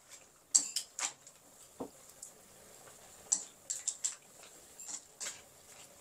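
A spatula scraping and clinking against a pan while stir-frying water spinach, in irregular, uneven strokes with the sharpest knocks about half a second in.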